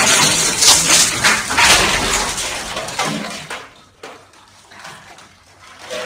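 A man and a stepladder crash down onto a tiled floor: loud clattering mixed with a dense hiss for about three and a half seconds, then it dies down to quiet knocks.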